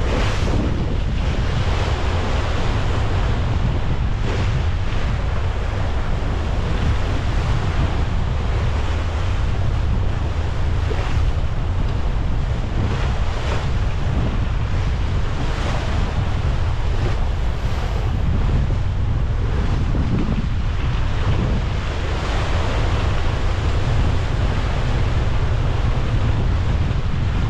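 Wind buffeting the microphone with a steady low rumble, over the rushing and splashing of seawater at the bow of a brigantine under sail. The hiss of the water swells and fades every few seconds.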